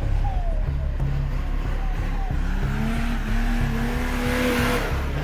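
An off-road 4x4's engine revving, its pitch climbing from about halfway through, over background music.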